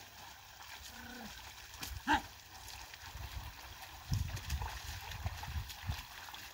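A pair of oxen dragging a wooden leveller through a flooded rice paddy: mud and water sloshing and splashing. There is a short call about two seconds in, and low thuds through the second half.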